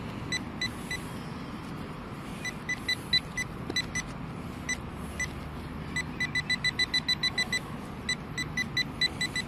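Handheld metal-detecting pinpointer beeping as it is probed around in a dug hole: short single beeps, then a quick run of rapid beeps about six seconds in, and more near the end, the pinpointer sounding on another piece of metal still in the soil.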